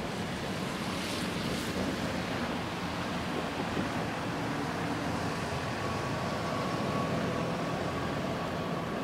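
Steady downtown street noise of traffic on wet roads, an even rushing hiss. A faint steady tone joins about halfway through.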